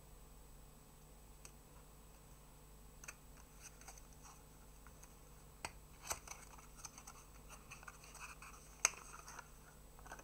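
Faint handling noises: a small cardboard box and plastic dropper bottles rubbed, scraped and set down on paper, with scattered clicks from about three seconds in and a sharper tap near the end.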